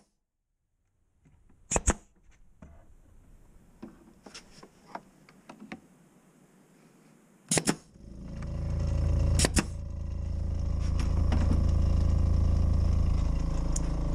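Pneumatic brad nailer firing three times, a sharp pop each: once about two seconds in and twice in the second half, with light handling clicks between. About eight seconds in, an air compressor kicks on and runs with a steady low hum.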